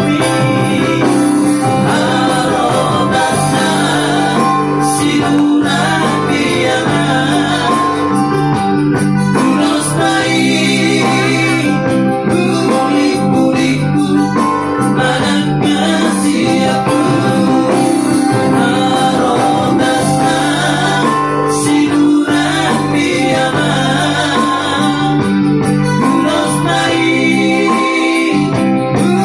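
Live amplified band music: men singing into microphones over an electronic keyboard, played through PA speakers.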